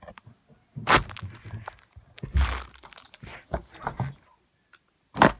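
Objects being crushed underfoot: a series of loud crunches and cracks, a few seconds apart, one with a heavy thud, and a sharp crack near the end.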